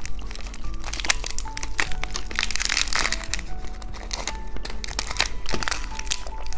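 Candy wrapper crinkling and crackling as it is handled and opened, many short crackles, over soft background music.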